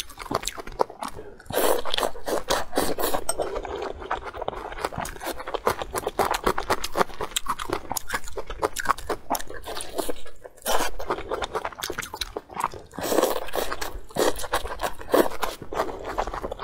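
A person chewing and biting saucy fried eggs close to a clip-on microphone: a dense, continuous run of wet mouth clicks and chewing sounds.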